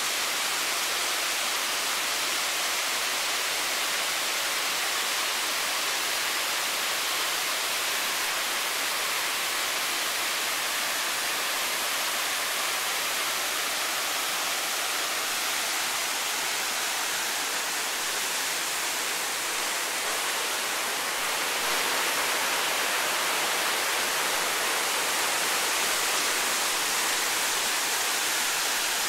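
Waterfall rushing: a steady, even hiss of falling water, a little louder about three quarters of the way through.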